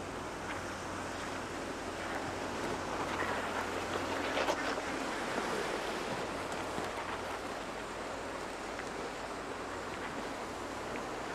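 Sea surf washing against a rocky shore, with wind buffeting the microphone; the wash builds briefly about three to five seconds in.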